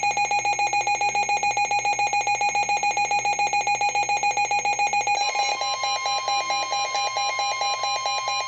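A weather alert radio's alarm beeping rapidly and evenly at a high pitch. About five seconds in, the steady warning alarm tone of NOAA Weather Radio sounds under the beeps, marking the start of a severe thunderstorm warning.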